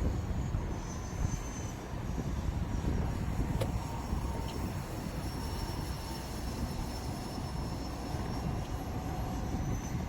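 Radio-controlled model airplane's motor and propeller flying overhead, a faint high whine that drifts a little in pitch, under a steady low rumble of strong wind buffeting the microphone.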